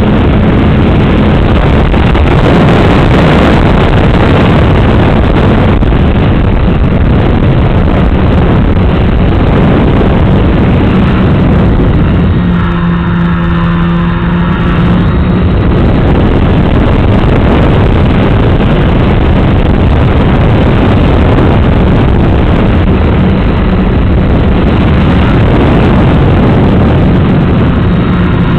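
A radio-controlled FPV model plane's motor and propeller running steadily with heavy wind rush, picked up loud and close by the camera on board. The rushing thins for a few seconds about halfway, leaving the motor's steady hum clearer.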